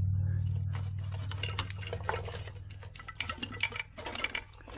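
Irregular light clicks and taps of hand tools and metal engine parts being handled, growing busier after about a second. A low steady hum fades out over the first three seconds.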